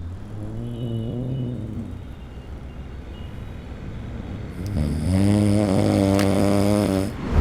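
A man snoring heavily over the low hum of a car. One rumbling snore comes in the first couple of seconds, then a louder, longer snore starts about five seconds in and breaks off just before the end.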